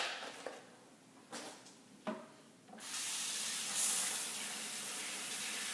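A few light knocks, then a kitchen tap turned on about three seconds in, running steadily as fresh blueberries are rinsed under it.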